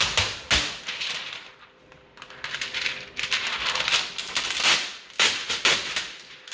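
Protective plastic film being peeled off a 3D printer's build plate, crinkling and crackling in a run of sharp crackles, with a quieter pause about two seconds in. A couple of dull knocks sound at the very start.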